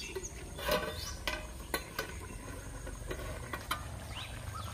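Metal cooking utensils clinking: a handful of sharp clinks as the ladle and lid are handled on a metal kadai over a clay stove and the lid is lifted. A few short chirps come near the end.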